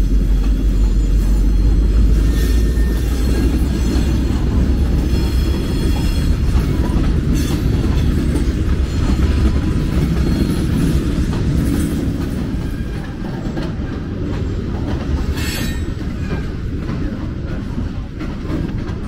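Diesel freight train passing over a steel truss bridge: the locomotive's deep engine rumble fades after about six seconds, then the rolling freight cars rumble on with faint high wheel squeal in the first half and a few sharp clanks.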